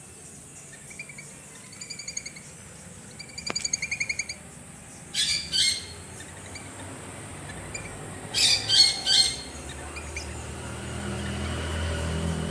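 Birds calling: quick trilled chirps, then harsh squawks in two bursts, a pair and then three in a row. A low rumble builds up near the end.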